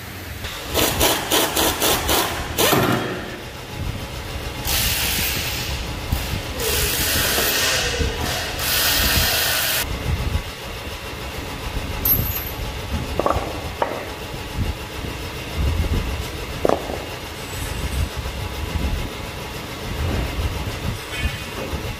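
Repair work on a tractor rotary tiller's rear leveling board. First comes a quick run of sharp metal clanks, then three harsh rasping bursts of a second or so each, then scattered knocks and a few short squeaks.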